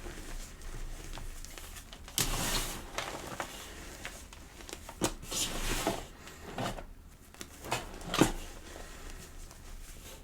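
A block of gym chalk being crushed and crumbled by hand, crunching in irregular bursts, with the sharpest crunch about eight seconds in.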